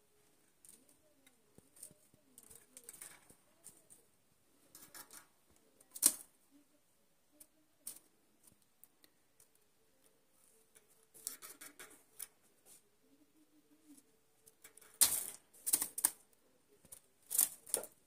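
Red canaries moving about their wire cage: scattered light clicks, taps and rustles as they hop on wooden perches and peck, with a few louder clattering taps near the end.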